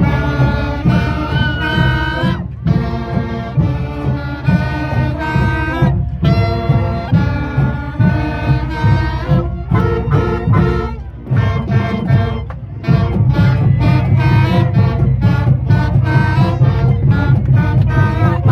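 Marching band playing a brass tune with saxophones, trombones and trumpets over a steady drum beat; it eases for a moment about two-thirds of the way through, then comes back louder.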